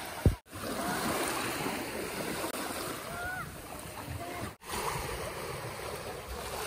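Small waves lapping and washing up on a sandy shore, with wind on the microphone. A short low thump comes right at the start, and the sound cuts out briefly twice.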